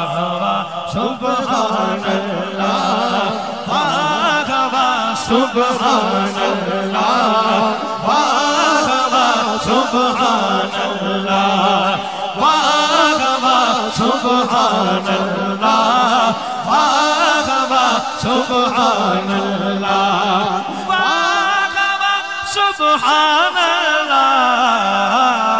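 Male voices singing and chanting a sehra naat over a sustained low hum, with melodic lines that keep rising and falling.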